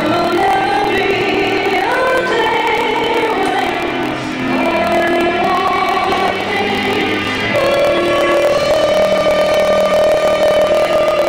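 A woman singing a slow song into a hand microphone over backing music, ending on a long held note.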